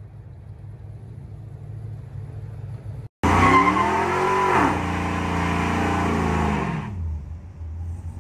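Car engine and spinning tyres, growing louder, then a sudden cut about three seconds in to a Cadillac Escalade's V8 doing a burnout. It is held at high revs with the tyres screeching and hissing, dips once in pitch, then about seven seconds in the revs drop and the tyre noise stops as it settles to a deep idle.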